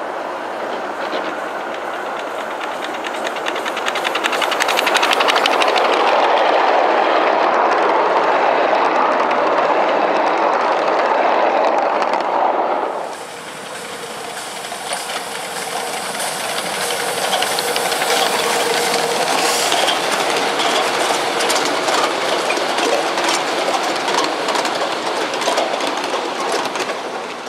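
Ride-on miniature live steam locomotives running on small-scale track: a steady hiss of steam and running gear, with wheels clicking over the rail joints. The sound swells as an engine draws near, then changes suddenly about halfway through, and a second engine is heard passing.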